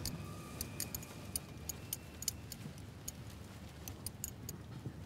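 Abacus beads being flicked along their rods, sharp irregular clicks a few at a time.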